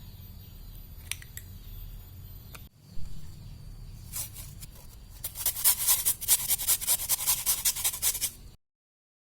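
Rapid, even tapping of a kitchen utensil during food preparation, about seven strokes a second, starting about five seconds in and cutting off abruptly near the end. Before it, a low steady hum with a few single clicks.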